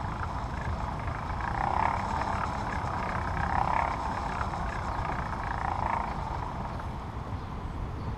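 Cable reel drum turning as armored power cable is pulled off it by hand, swelling in pulses about every two seconds over a steady low rumble.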